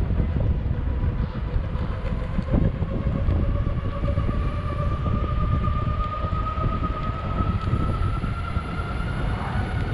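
Metroboard X electric skateboard rolling over concrete: a steady rumble from the wheels, with a thin motor whine that climbs slowly in pitch.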